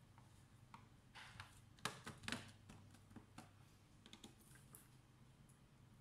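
Faint clicks and taps of a screwdriver on the screws and plastic bottom cover of a Dell Inspiron 3511 laptop, loudest in a short cluster about two seconds in.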